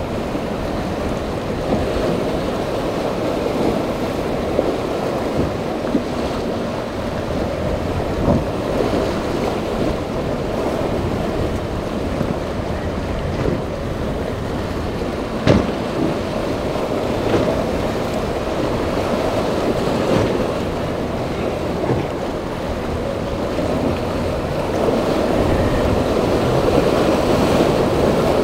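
Rough sea and breaking waves with outboard-powered boats running through the chop, and wind buffeting the microphone. A single sharp knock stands out about halfway through.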